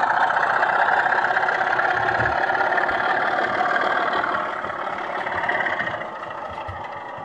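Diesel engine sound from a model locomotive's DCC sound decoder, running steadily through its small loudspeaker. It gets quieter over the last few seconds.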